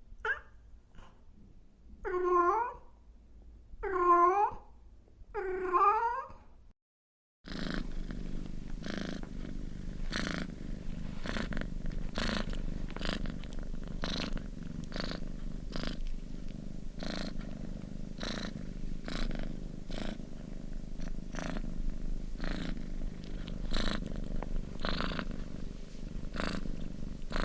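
A cat meows three times in a row, each meow bending down then up in pitch, the pleading meows of a begging cat. After a short silence a contented cat purrs steadily, with a regular pulse as it breathes in and out.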